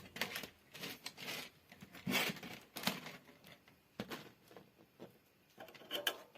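Irregular clicks, taps and rustles of objects being handled, a dozen or so short sounds of uneven loudness.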